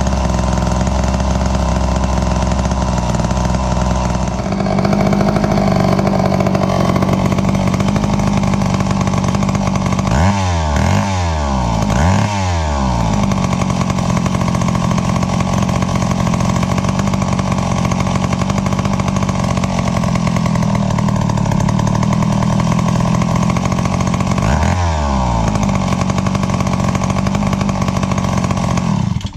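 McCulloch Model 33B chainsaw's two-stroke engine on its test run after a carburetor rebuild. It runs steadily at idle, is blipped up and down about three times near the middle and once more a few seconds before the end, then is shut off at the end.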